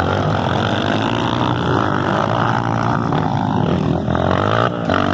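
Several motocross bikes' engines running at once, their pitches rising and falling as they rev, with a dip about four seconds in.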